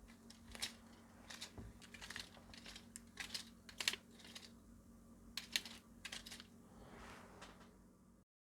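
Light, irregular clicks and taps, some close together and some spaced apart, over a faint steady hum; the sound cuts off abruptly near the end.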